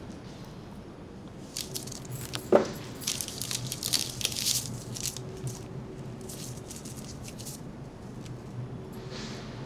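Paper wrapper crinkling and tearing in short bursts as a tea bag is unwrapped over a mug, with a single sharp, briefly ringing clink about two and a half seconds in.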